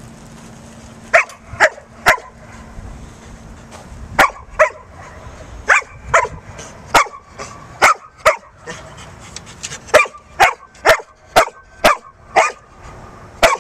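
Large black dog barking: about seventeen short, loud barks, starting about a second in and coming in quick runs of two or three, with a run of six near the end.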